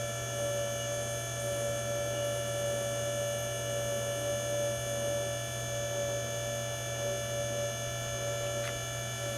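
Steady electric whirring hum from under the left side of a 2010 Volvo C70's engine with the key at position II, a rotating sound that runs on after the engine has failed to start.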